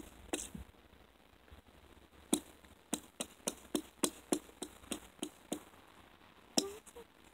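Machete chopping into pond ice: a run of about a dozen sharp strikes, roughly three a second, then one more after a short pause.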